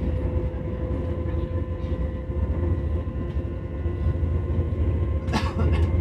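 CRH1A electric multiple unit running at a steady speed, heard from inside a passenger car: a deep rumble of wheels and running gear under a steady whine from the VVVF traction motors. A brief sharp noise comes about five seconds in.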